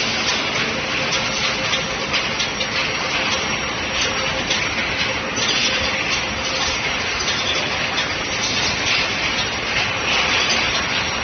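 Steel ball hot rolling production line running: a continuous industrial din of machinery with dense small clinks and rattles, and a faint steady hum that fades about halfway through.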